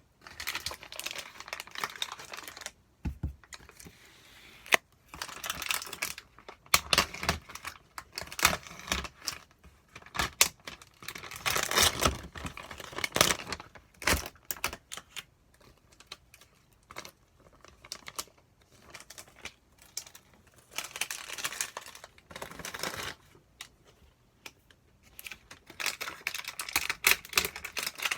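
Plastic delivery-food packaging crinkling and tearing as it is handled and torn open, in irregular spurts of crackling with short pauses between them.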